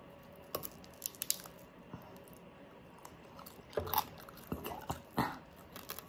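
Close-miked tearing and pulling of a baked pork hock by hand, with scattered small crackles of its skin and wet squishes of meat. A few louder crackles come about four and five seconds in.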